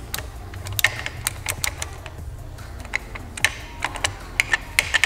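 Irregular sharp metallic clicks and clinks, some in quick clusters, as a shift rod and its shift fork are worked back and forth in a partly stripped Nissan CD009 six-speed manual transmission. The rod will not slide free yet.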